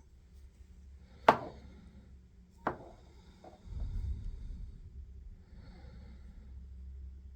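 Two sharp knocks about a second and a half apart, the first the louder, as shotgun shells are set down on a hard surface, followed by a few light ticks and a low rumble of shells being handled.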